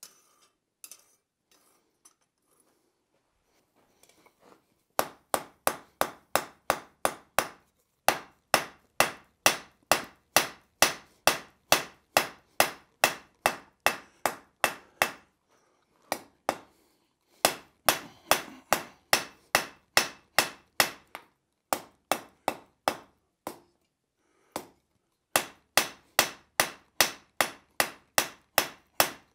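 Blacksmith's hand hammer striking red-hot steel on an anvil: after a few faint clinks, a quick, steady run of ringing blows about three a second begins some five seconds in, broken by short pauses.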